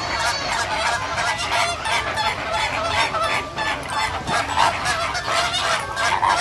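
A flock of flamingos honking: many short, goose-like calls overlapping without a break.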